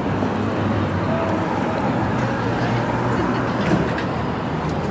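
Street ambience: a steady rumble of traffic with faint murmuring voices from people standing in line.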